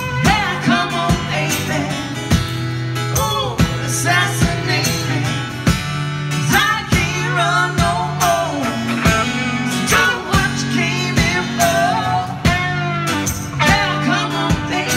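Live band playing a blues-rock song: strummed acoustic guitar and electric guitar with singing over a steady beat.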